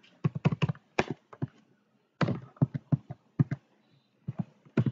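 Computer keyboard being typed on: a string of irregular, separate key clicks as a word is typed out one key at a time.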